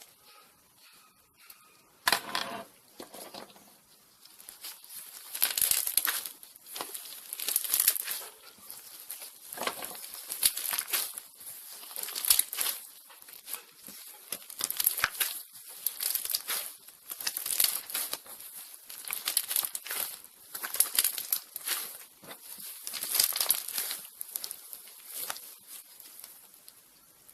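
Fluffy slime being handled, crackling and crinkling in repeated bursts every second or two.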